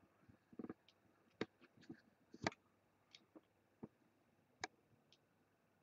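Faint, irregular clicks of a computer mouse, about a dozen scattered over a few seconds, as a spreadsheet is scrolled, with near silence between them.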